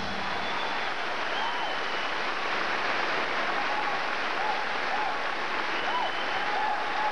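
Studio audience applauding steadily, with scattered short cheers and whistles rising over the clapping.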